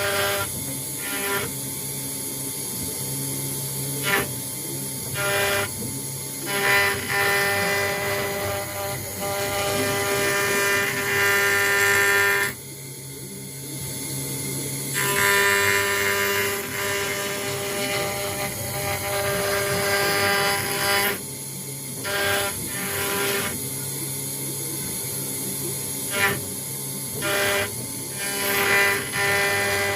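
CNC router engraving machine running, its spindle bit cutting an acrylic sheet. The spindle holds a steady whine, and a rougher cutting noise comes and goes as the tool moves across the work, dropping away briefly about halfway through.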